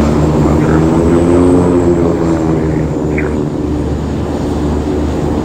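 Boeing 737-8 MAX's CFM LEAP-1B jet engines at climb power after takeoff: a loud, steady rumble with a droning tone whose pitch sways slightly.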